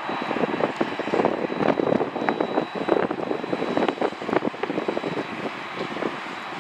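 Twin jet engines of a Boeing 767-300ER at taxi power: a steady rumbling hiss with a thin high whine that fades about two thirds of the way through, overlaid by many short irregular crackles.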